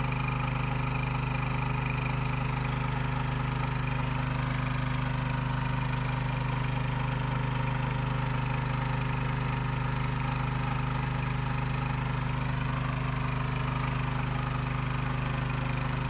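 Small Robin industrial engine running steadily at constant speed, an even low drone. It drives a machine that separates gold from sand.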